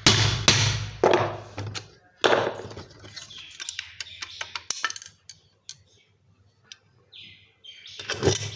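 Four hammer blows on a steel punch, knocking out the rivets that hold a washing machine spinner motor's housing together, followed by light metal clinks and rattles as the motor halves are worked apart, and a louder scraping clatter near the end as the stator comes free of the housing.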